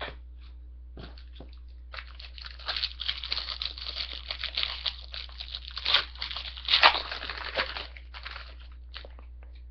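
Wrapper of a 2005 Parkhurst hockey card pack crinkling and tearing as it is pulled open by hand. After a few light clicks, a dense crackle starts about two seconds in and lasts about six seconds, loudest near the end.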